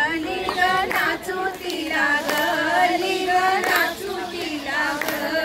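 A group of women singing a Marathi devotional song (bhajan) to the goddess Tulja Bhavani in unison, with a few handclaps keeping time.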